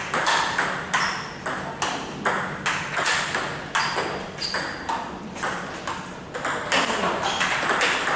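Table tennis rally in training: the celluloid-type plastic ball clicking sharply off the bats and bouncing on the table in quick, even succession, a few hits a second, with one player chopping from back of the table. Fainter clicks from rallies on other tables mix in.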